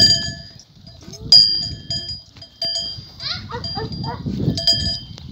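A small metal bell struck over and over, about seven or eight strikes, each a sharp clang with a short ring.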